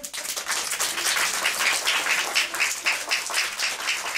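Audience applauding, many hands clapping at once, starting suddenly.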